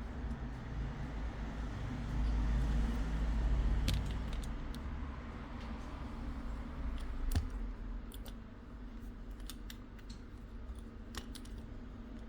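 Scattered clicks and taps of small tools and parts being handled, over a steady low hum that swells for a couple of seconds near the start.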